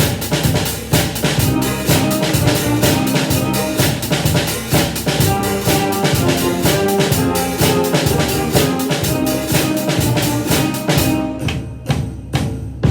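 Drum kit playing a steady bass drum and snare beat, a walking rhythm, along with a recorded band accompaniment. The music thins out about 11 seconds in.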